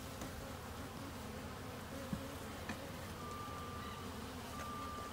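A swarm of honeybees buzzing steadily around an open swarm trap and hive box, with two light knocks a little after two seconds in.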